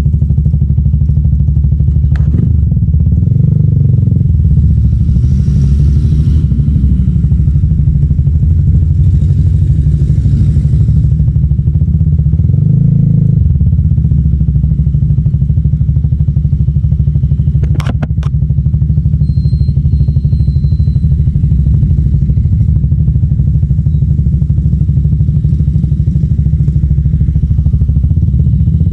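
A 300SR motorcycle engine running steadily through an Akrapovic M1 aftermarket exhaust, with brief throttle rises about three seconds in and again around thirteen seconds. Two sharp clicks cut through, one about two seconds in and one around eighteen seconds.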